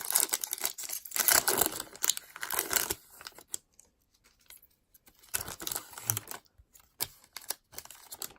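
Foil wrapper of an Upper Deck hockey card pack being torn open and crinkled. The rustling runs for about three seconds, then comes again briefly about five seconds in, with a few small handling clicks near the end.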